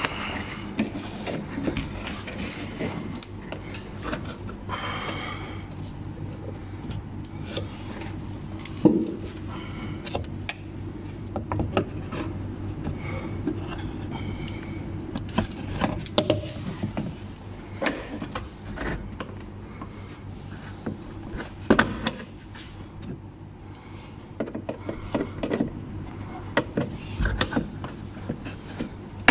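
Scattered clicks, knocks and scraping of a screwdriver and pliers against plastic wheel-arch trim and liner fasteners as they are worked loose. A sharp knock comes about nine seconds in and another near twenty-two seconds, over a steady low hum.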